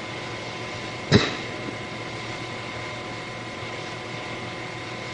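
Steady background hiss of an old sermon recording, with faint steady hum tones running through it, and one short, sharp sound about a second in.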